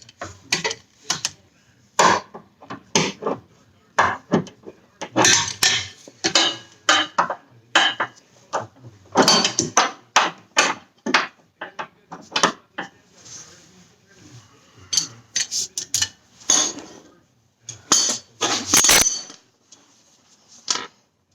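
Hand tools and metal car parts clanking: many irregular sharp knocks and clinks, as of wrenches and bolts worked on suspension hardware.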